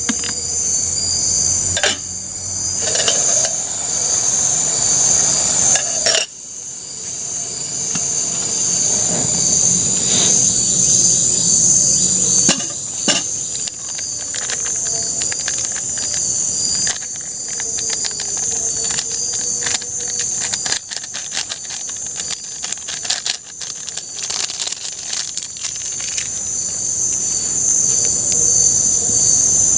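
Forest insects keeping up a steady high-pitched chorus, with scattered sharp knocks and taps from shelter-building work.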